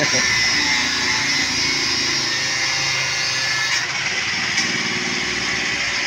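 Angle grinder with a cutting disc cutting through steel rebar, a steady high-pitched grinding. Its tone shifts slightly about four seconds in.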